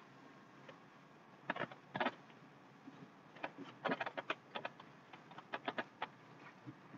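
Irregular clusters of sharp clicks and taps over a faint steady background, loudest about one and a half to two seconds in and again around four seconds.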